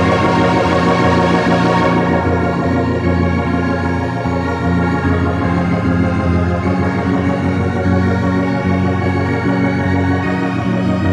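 Dungeon synth music: slow, sustained organ-like keyboard chords held in long layered tones, the bright upper register thinning about two seconds in.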